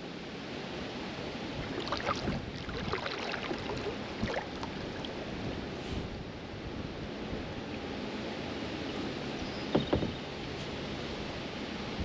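Kayak paddle dipping and splashing in river water over a steady rush of wind and water, with a cluster of splashes a couple of seconds in and a single louder splash near the end.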